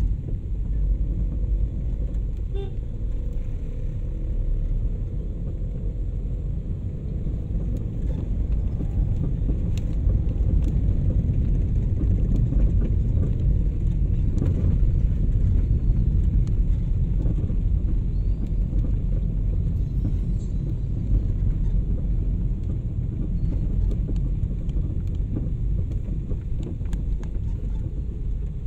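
Steady low engine and road rumble of a taxi heard from inside the cabin as it drives through traffic.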